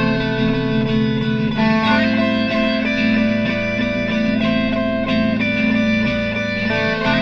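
Looped electric guitar improvisation: sustained ringing notes layered over a low repeating guitar figure, with the chord shifting about every two to four seconds.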